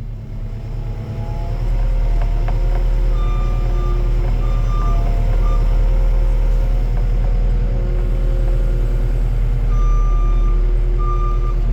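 Forklift engine running with a steady low rumble that grows louder about a second and a half in, with short warning beeps in two bursts from its travel alarm as it moves.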